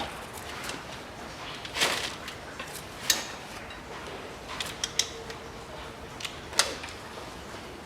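Socket wrench working on cylinder head bolts as they are loosened: scattered sharp metallic clicks and knocks, about half a dozen, spaced irregularly.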